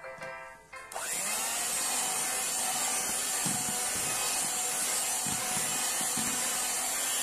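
Electric hand mixer switched on about a second in, its motor whining up to speed and then running steadily as the beaters whip pandan sponge-cake batter in a stainless steel bowl. Light background music plays before it starts.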